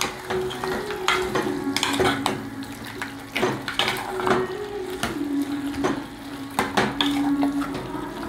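A white plastic spoon stirring meat and vegetables in an aluminium pot, with irregular knocks and scrapes as the spoon strikes the pot's sides.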